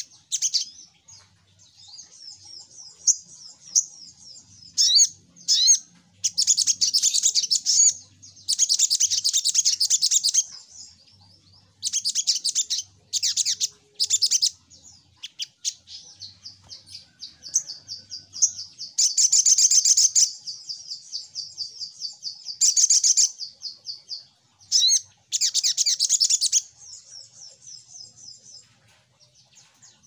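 Sogok ontong, a sunbird, singing: bursts of rapid, high-pitched chirping trills lasting one to two seconds each, repeated about a dozen times and separated by softer twittering.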